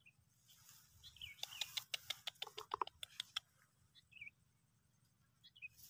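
Faint bird chirps in the background, with a quick run of about a dozen sharp clicks or ticks lasting about two seconds near the middle.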